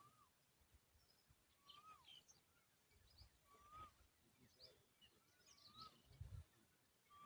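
Faint outdoor birdsong: one bird repeats a short rising-then-falling note about every two seconds, while higher, quick chirps come in between. Faint low rumbles come and go underneath.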